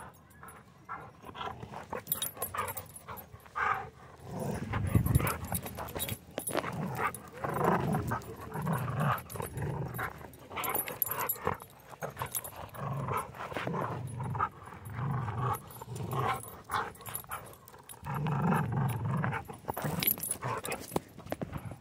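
German Shorthaired Pointer growling and grunting in play close to the microphone as it mouths a rope toy: a run of short, low growls starting a few seconds in.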